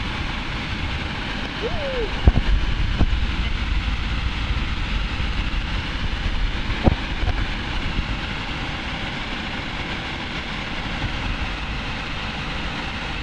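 Steady rush of fast, churning river water, with wind rumbling on the microphone. A few sharp knocks stand out, the loudest about two seconds in.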